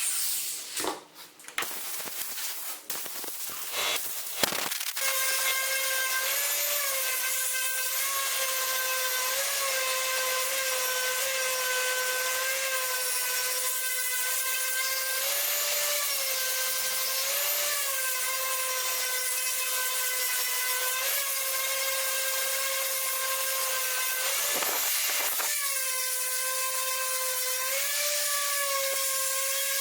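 A high-speed electric power tool motor running with a high whine, its pitch lifting briefly every second or two as it works. Before it starts there are a few seconds of knocks and scraping, and near the end it stops for about a second and starts again.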